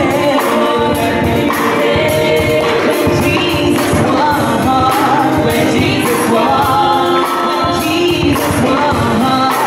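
Gospel song: three women singing together through microphones, backed by keyboard and a steady percussion beat.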